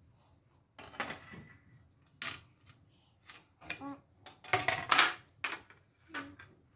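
Plastic watercolour paint box and its clear plastic tray clattering and knocking on a wooden parquet floor: a series of sharp clicks and taps, with a louder cluster of knocks about halfway through.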